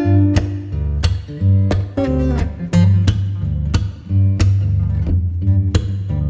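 Background music led by plucked guitar notes over a steady bass line.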